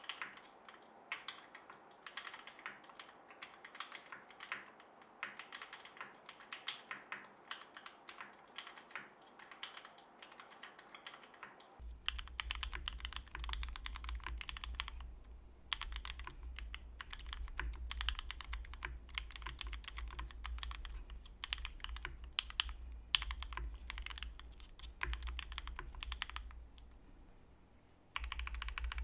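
Continuous fast typing on a steel-plate mechanical keyboard with linear Gateron Oil King switches, plate foam and GMK keycaps: a dense run of keystroke clacks. About midway the keystrokes become louder and a steady low hum sits beneath them. Typing pauses briefly twice, the longer pause shortly before the end.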